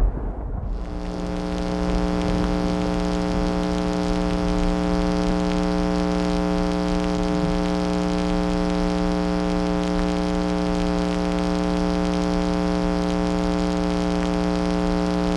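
A steady electronic drone: one buzzing tone with many overtones that starts sharply under a second in and then holds at the same pitch and level.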